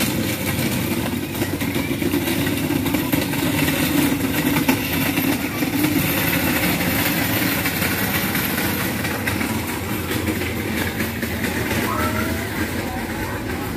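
Steady motor rumble, with indistinct voices in the background.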